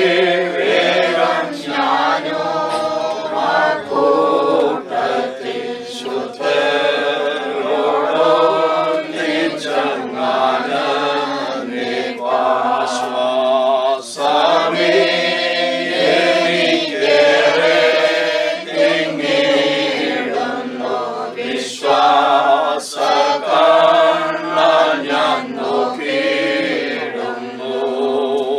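A small group of mourners singing a Malayalam Christian funeral hymn together without instruments, in slow held phrases with short breaths between lines.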